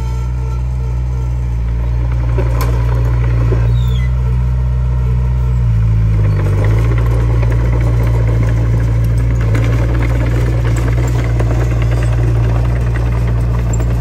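Komatsu D20P crawler bulldozer's diesel engine running steadily, with a brief dip in engine pitch about six seconds in before it recovers.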